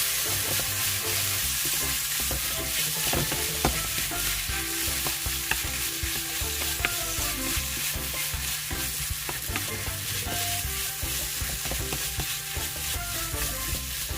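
Food frying in hot oil in a pan, a steady dense sizzle with a few faint clicks.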